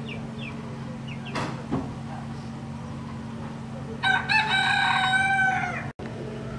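A rooster crowing once, starting about four seconds in and lasting nearly two seconds, over a steady low hum. A few short chirps come before it.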